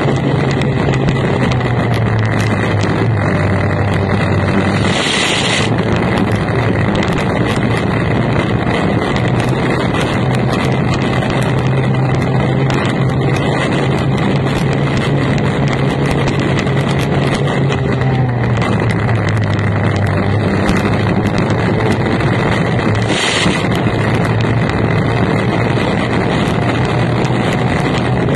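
Formula 1 tunnel boat's racing outboard engine running at race speed, heard on board over heavy wind noise on the microphone and rushing water. The engine note drops about four seconds in and again around eighteen seconds, then climbs back, with a short hiss each time it comes back up.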